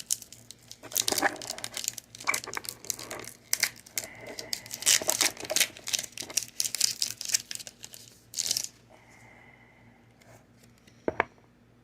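Foil wrapper of a Pokémon card booster pack crinkling and tearing as it is opened, stopping about nine seconds in, followed by a single sharp click near the end.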